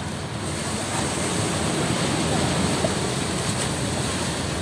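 Ocean surf washing on the beach, with wind rumbling on the microphone; the wash swells a little around the middle.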